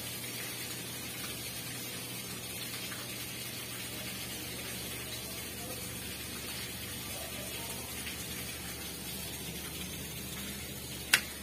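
Steady hiss of running water with a faint low hum that fades out toward the end, then a single sharp click just before the end.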